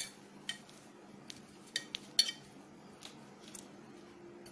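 A metal cake pan being greased with oil by hand: a handful of light, irregularly spaced clinks and taps against the metal as the hand rubs around inside it.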